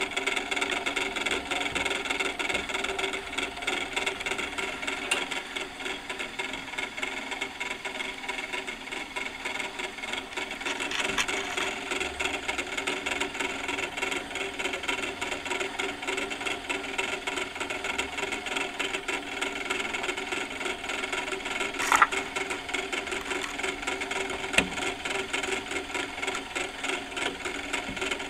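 Antique clockwork spit-roaster (tourne-broche) running: its gear train turns with a steady mechanical whirr and rattle. A sharp click about three quarters of the way through, and a lighter one shortly after.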